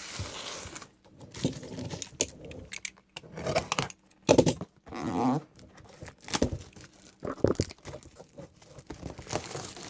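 Trading-card packaging being handled, torn and crinkled in short, irregular bursts.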